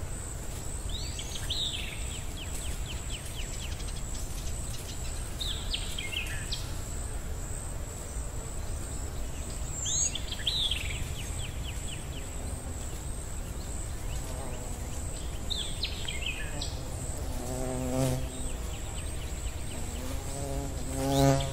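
Nature ambience: a steady high insect drone, with a call repeating about every four to five seconds, each a quick falling note followed by a short rattling trill. Lower pitched calls come in a few times near the end.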